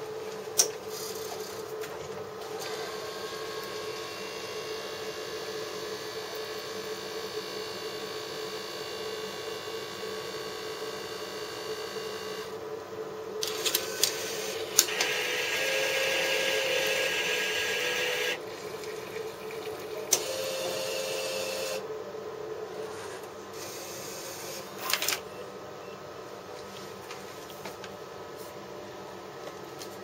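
Flavia pack coffee vending machine brewing a cup: a steady motor hum with sharp clicks, and about halfway through a louder hiss of hot water dispensing for about three seconds, with two short tones.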